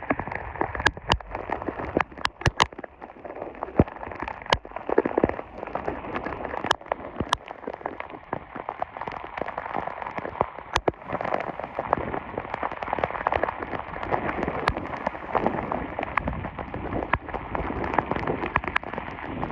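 Very heavy rain falling steadily, with irregular sharp taps from large drops striking close by.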